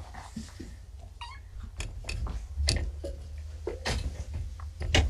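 A kitten meows briefly about a second in, among several sharp knocks and thumps, over a steady low hum.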